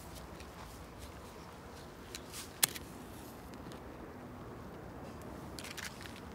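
A match struck on a matchbox: a couple of small scrapes and then one sharp crack as it strikes, about two and a half seconds in, against a faint background. A few brief soft hissing rustles near the end.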